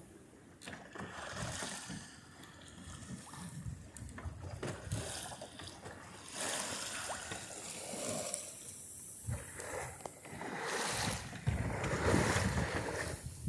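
Water rushing and splashing along the hull of a small sailing dory moving through a choppy swell, with wind buffeting the microphone. The rush swells and fades in surges and is loudest near the end.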